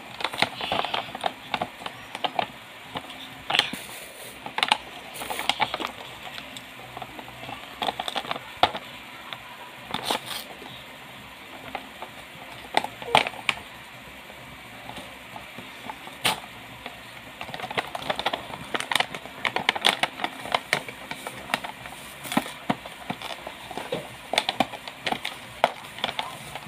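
A cardboard toy box with a clear plastic front being handled and opened by hand: irregular clicks, crackles and scrapes of the packaging.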